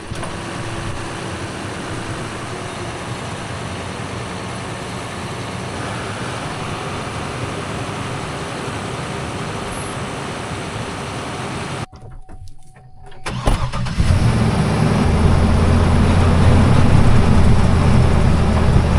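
Steady background noise, a sudden brief quiet gap, then a vehicle engine starts and runs with a steady low hum.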